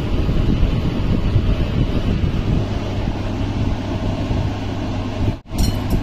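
A fan running steadily, a dense low hum with hiss; it cuts out for an instant near the end.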